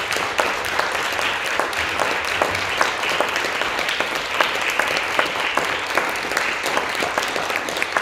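Audience applauding steadily, a few single claps standing out sharply above the rest.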